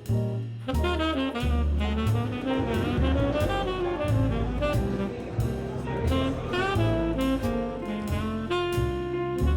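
Jazz background music: a saxophone melody over bass and drums.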